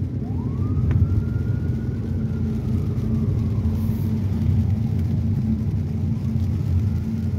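Steady low rumble of a car driving on a wet road, heard from inside the cabin, with a faint whine that rises and then slowly falls.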